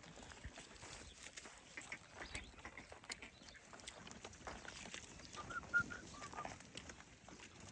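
Farmyard animal sounds: scattered light knocks and shuffling, with a few short, high bird-like chirps about two seconds in and a small cluster of chirps just past the middle.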